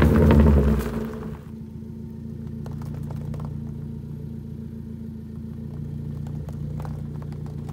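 2014 Ford Focus SE's four-cylinder engine running through a straight-piped exhaust with the muffler cut off: a loud rev dies down about a second in, and the engine settles into a steady idle rumble.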